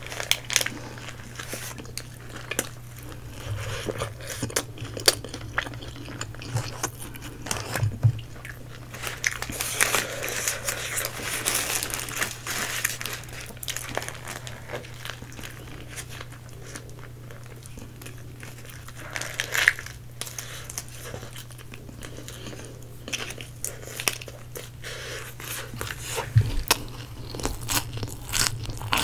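Close-miked eating: bites into a paper-wrapped Aloha burger with lettuce, bacon and pineapple, with crunching, chewing and crinkling of the paper wrapper in irregular snaps and crackles.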